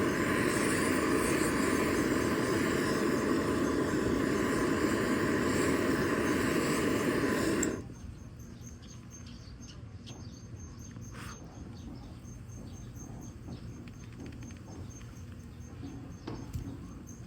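Handheld butane gas torch running with a steady hiss on firewood, cut off suddenly about eight seconds in. After it, a few faint crackles and ticks of the wood starting to burn.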